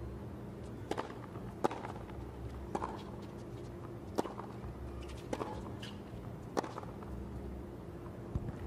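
Tennis rally opening with a serve: a series of sharp pops from the ball being struck by rackets and bouncing on the hard court, roughly a second or so apart, with about six standing out.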